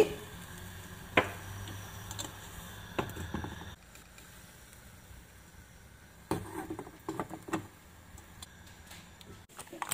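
A metal hopper pan being handled on a gas hob: a couple of sharp knocks over a faint low hum that drops away about four seconds in, then a short run of light clattering knocks as the lid is set on the pan.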